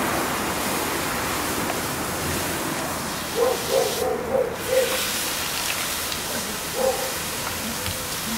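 Water poured from a watering can onto the heated iron tyre of a wooden cart wheel, hissing into steam as the tyre is quenched to shrink it tight onto the wheel. The hiss is steady but breaks off briefly about four seconds in, with a few short squeaky notes around then.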